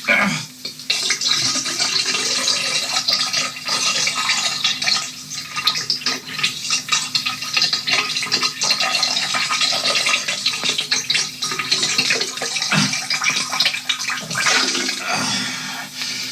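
Continuous splashing, gushing water with irregular crackles, rising and falling in loudness.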